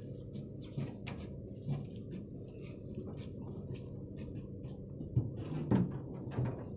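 Steady low hum of the fishing boat's engine running, with scattered light knocks and clicks over it, a few stronger ones about five to six and a half seconds in.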